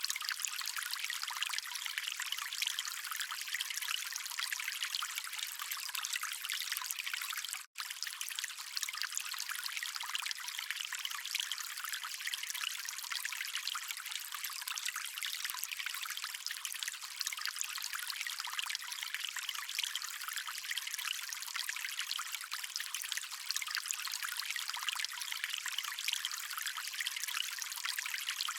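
Running water of a small stream, a steady high trickling with no low rumble, cutting out for an instant about eight seconds in.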